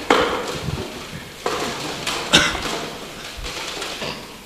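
Plastic CD cases clacking and rattling as they are rummaged through in a box, with a few sharp knocks among the rustle.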